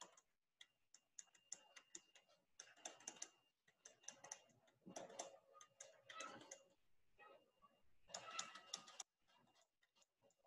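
Faint taps and scratches of a stylus writing on a tablet screen, coming in short clusters of quick clicks with pauses between them.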